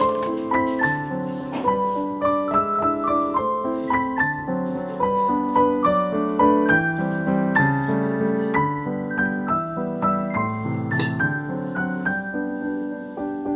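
Background piano music: a steady flow of single notes and chords.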